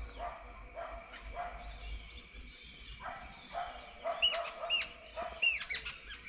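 Crows cawing over and over, short harsh calls about every half second. From about four seconds in, another bird adds a few loud, sharp whistled notes that drop in pitch.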